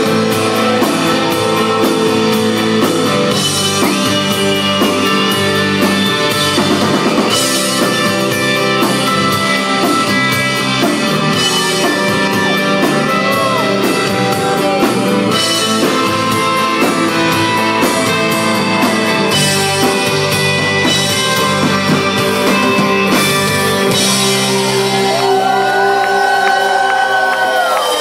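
Rock band playing live: electric and acoustic guitars, drum kit and singing, loud and dense. About four seconds before the end the low end drops away and a few long held notes sound out as the song closes.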